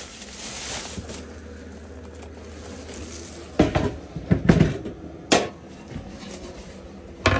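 Wooden cutting board and other kitchen things being handled and set down on a small counter, with several sharp knocks and clatter from about halfway through and one more near the end. A low steady hum runs underneath.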